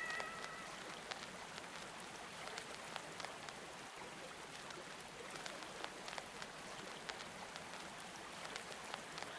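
Soft, steady rain-like water ambience with scattered faint crackling clicks, heard in the silence between two songs.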